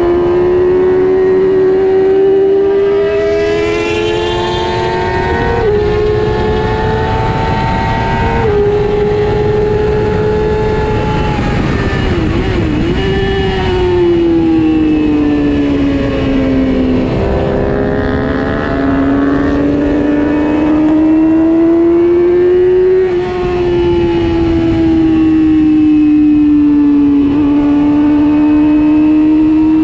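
Racing motorcycle engine heard from onboard at high rpm, its pitch climbing and falling as the bike accelerates and slows through the corners, with a few sudden steps in pitch. A steady rush of wind noise lies underneath.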